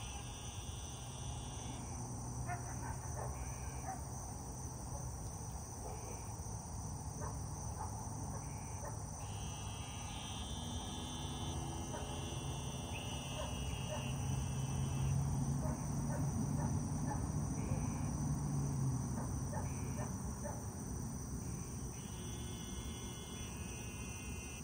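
Outdoor insect chorus: a steady high-pitched shrill, with short pulsing trills repeated every few seconds. Under it a low rumble swells in the middle and fades again.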